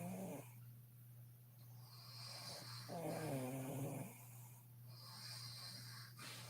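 A sleeping woman snoring. The end of one snore fades out just after the start, and a full pitched snore comes about three seconds in, lasting about a second. Soft hissing breaths fall between the snores, over a low steady hum.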